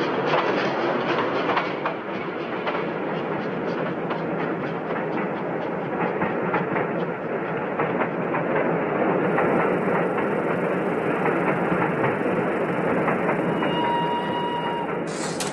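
Passenger train running along the rails: a steady rumble with a rapid clickety-clack of wheels over the rail joints. Near the end a short ringing tone sounds and typewriter keys begin to clack.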